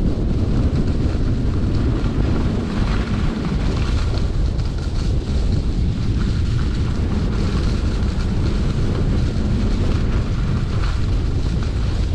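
Wind buffeting the microphone of a camera carried by a skier moving downhill, a steady rumble with the hiss of skis running over packed snow.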